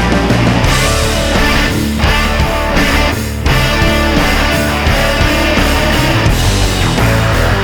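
Background rock music with distorted electric guitar and a driving beat, loud and continuous.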